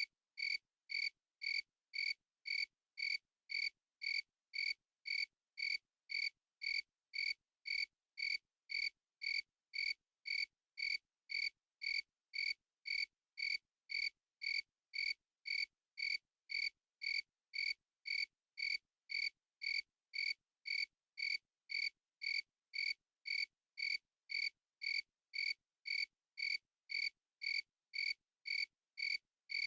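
Cricket chirping in an even, unbroken rhythm of about two chirps a second, each chirp a short high-pitched pulse.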